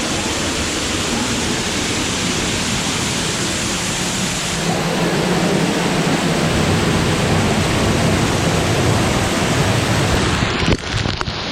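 Waterfall rushing loudly and close to the microphone, a steady roar of falling water. About halfway through the highest hiss falls away and the sound turns fuller and lower. Near the end it breaks up in a few abrupt dropouts.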